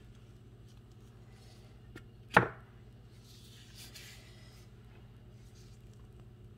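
A single sharp knock about two seconds in, a hard object set down or struck, followed by a soft rustle for a second or so, over a low steady hum.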